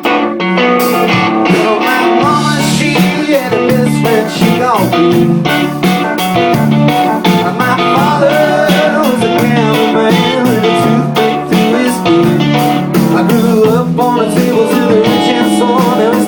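Live music: guitar played in a steady strummed rhythm, with other pitched parts over it.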